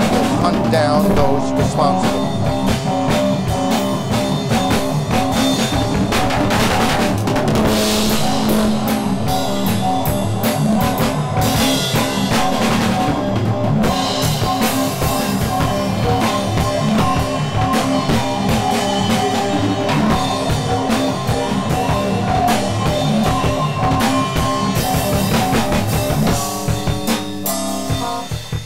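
Rock music with a drum kit and guitar, no vocals, at a steady loud level; about two seconds before the end the drums fall away and the music thins.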